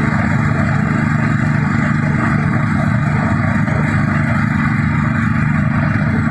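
Clove bud stripping machine running steadily. An even motor drone sits beneath a continuous rattling hiss as stripped clove buds pour out into the catch basin.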